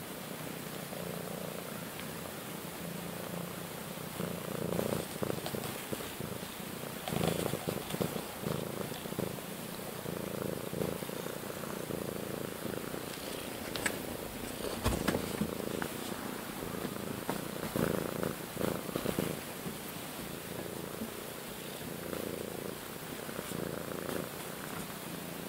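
Domestic cat purring close to the microphone, the purr swelling and fading every second or so, with occasional knocks and rustles as the cat's body brushes against the camera.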